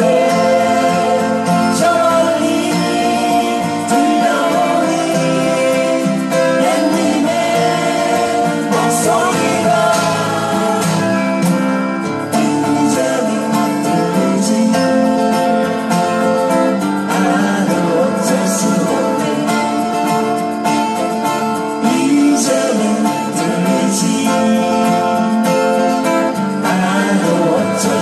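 Acoustic guitars strumming a slow ballad together, with a lead melody of long held notes that now and then slide in pitch over the top.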